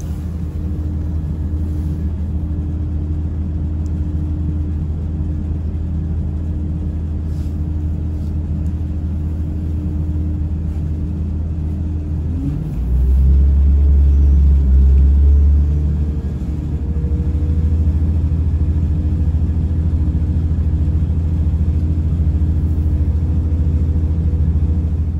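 Interior running sound of a Class 170 Turbostar diesel multiple unit: a steady rumble from its underfloor diesel engines and wheels on the rails. About halfway through, the engine note rises and the rumble grows louder for a few seconds, then holds at the higher note as the train powers up.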